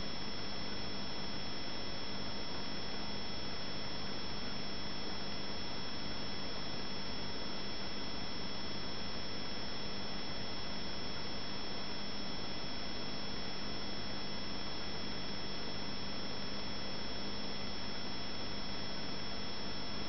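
Fish tank's air bubbles and equipment running: a constant hiss of rising bubbles over a steady hum.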